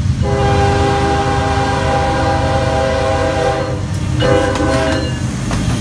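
Diesel locomotive's air horn, several notes sounding together, blowing a long blast and then a short one about four seconds in, over the low rumble of the locomotive passing close by. The blasts belong to the horn signal for a grade crossing.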